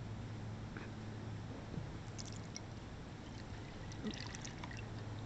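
Milk poured from a glass onto a shallow plate, splashing and overflowing the rim. The faint crackly splashing comes mostly in the second half, over a steady low hum.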